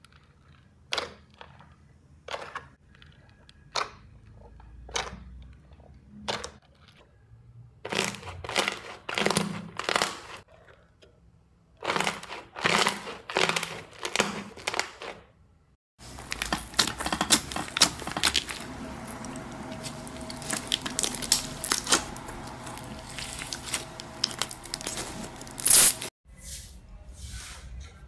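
Slime being pressed and squeezed by hand, giving sharp crackling pops, first about one a second and then in quicker clusters. After a cut about sixteen seconds in, the pops become a dense, continuous crackling and crunching.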